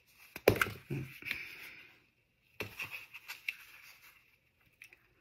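A stiff cardstock card being handled and turned in the hands, with a sharp knock about half a second in and two bouts of paper handling noise.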